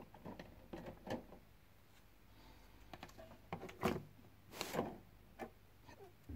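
Plastic miniature sprues being lifted out of a cardboard box and set down: light clicking and rustling of the plastic frames against the box, with a couple of louder clatters a little past the middle.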